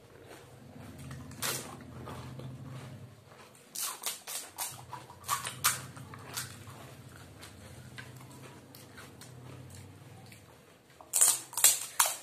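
Crisp fuchka (pani puri) shells cracking and crunching in short, sharp cracks: a single one about a second and a half in, a cluster from about four to six seconds in and another near the end, over a low steady hum.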